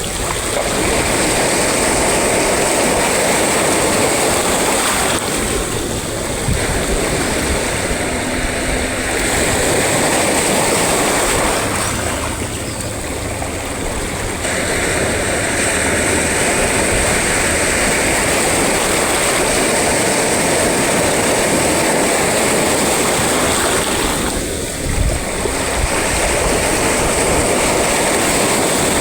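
Sea waves and surf: a continuous loud wash of water that eases briefly three times.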